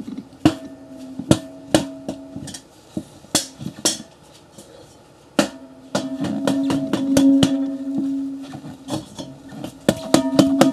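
Irregular sharp taps or knocks, some followed by a ringing tone that hangs on. They are scattered at first, then come in a fast flurry in the second half.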